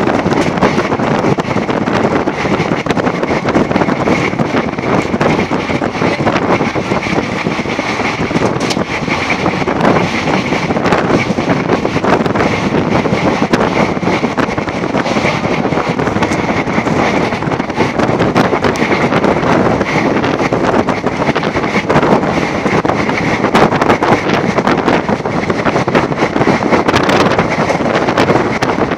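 Passenger train running at speed, heard from its open door: loud wind buffeting the microphone over the steady running noise of the coaches, with frequent small clicks and knocks from the wheels and track.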